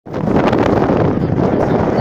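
Wind blowing hard across the microphone, a loud, steady rumbling buffet.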